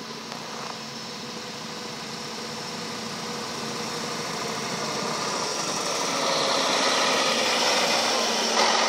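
PistenBully 600 snow groomer's diesel engine and tracks running steadily, growing louder as the machine draws near and passes close by near the end.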